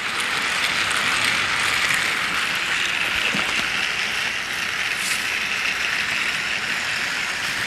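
Several battery-powered Trackmaster toy train engines running together on plastic track: a steady mechanical whir and clatter of small gear motors and wheels.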